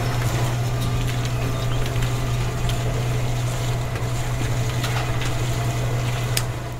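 Small electric motor of a miniature concrete mixer running with a steady low hum as its drum turns.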